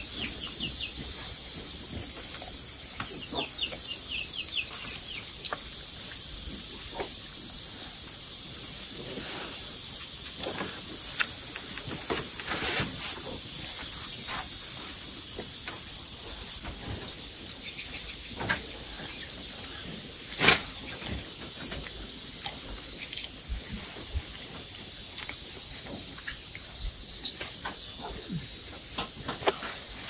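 A steady high-pitched hiss with scattered light clicks and knocks, and one sharper knock about twenty seconds in.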